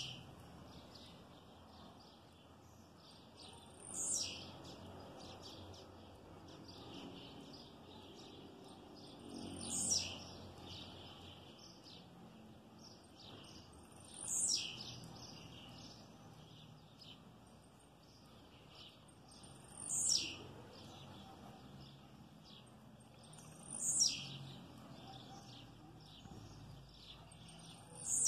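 Male blue-black grassquit (tiziu) repeating its short, high song note, a quick downward sweep, about every four to six seconds.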